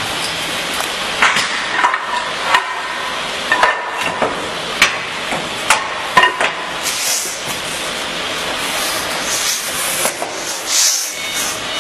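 Irregular metal knocks and clanks, several ringing briefly, over a steady workshop noise, with a few hissing scrapes in the second half: steel parts being handled and fitted while the mould of a wall panel making machine is installed.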